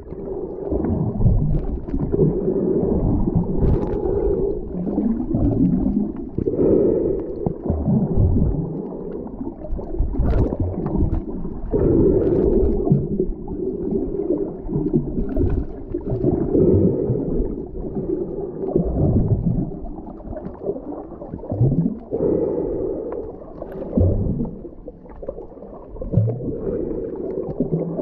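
Muffled underwater water noise heard through a submerged camera's housing: a low rumble and gurgle that swells and fades every five seconds or so.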